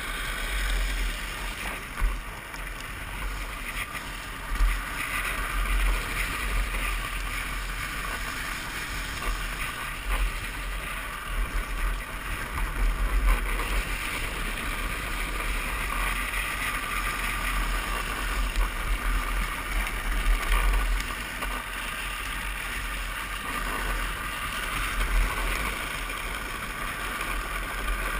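Wind buffeting the microphone over the steady rolling and scraping hiss of a drift trike's hard plastic rear wheels on asphalt, with a few short knocks from bumps in the road.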